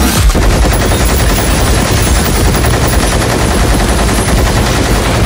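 Heavy machine gun firing in one continuous rapid stream, a film action-scene sound effect.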